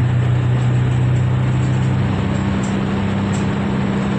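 City bus heard from inside its cabin: a steady low drone from the running drivetrain over road noise. The pitch of the drone steps up about halfway through.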